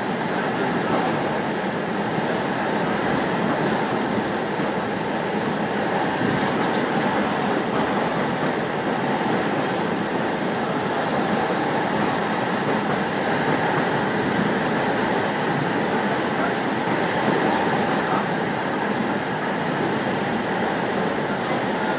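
A train running steadily along the track, heard from on board: a continuous rumble and rush of wheels on rail.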